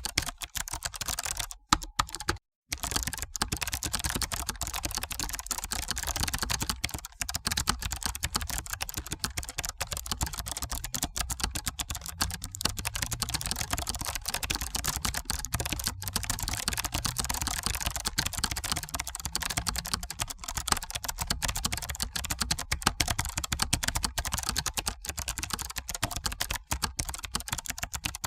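Continuous fast typing on a computer keyboard, a dense irregular stream of key clicks, broken by a very short silent gap about two and a half seconds in.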